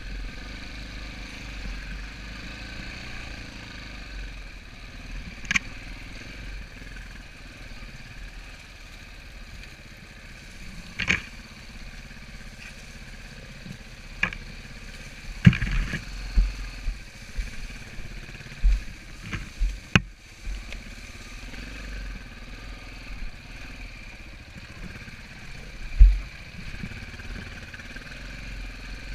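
Dirt bike engine running at low trail speed, with several sharp knocks and clatter as the bike rides over rocks; the loudest knock comes near the end.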